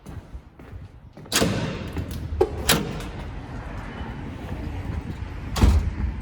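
Doors being opened and shut: a bang with a short rushing tail about a second in, two sharp clicks soon after, and a heavy thud near the end.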